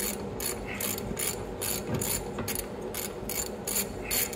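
Hand ratchet wrench being worked back and forth to run out a rear brake caliper mount bolt, its pawl clicking in short bursts about two to three times a second.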